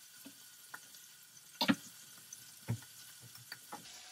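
Diced bacon sizzling faintly as it renders in a pot, with a few sharp knocks on a wooden cutting board, the loudest a little before halfway.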